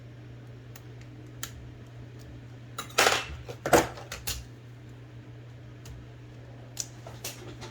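Metal clicks and clatter of small parts and tools being handled while an IBM Selectric II typewriter is taken apart. A burst of rattling is loudest about three to four and a half seconds in, with single clicks before and after, over a steady low hum.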